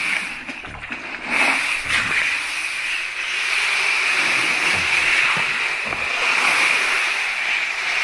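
Hailstones being scooped up with a plastic container pushed through a thick layer of piled hail: an irregular gritty scraping and rattling of ice pellets, over a steady high hiss.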